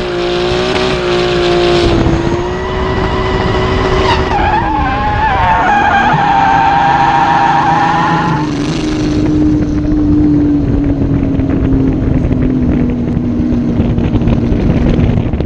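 Nissan RB26DET twin-turbo straight-six in a drifting S13 held at steady high revs, then the revs drop about four seconds in while the tyres squeal for several seconds. After that the engine note slowly falls under a steady rushing noise.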